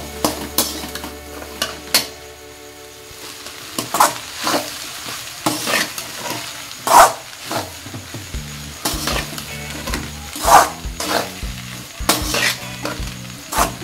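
Steel spatula scraping and knocking against an aluminium kadai as fried rice is stirred and tossed, in irregular strokes, the loudest about 7 and 10.5 seconds in. A steady sizzle of frying runs underneath.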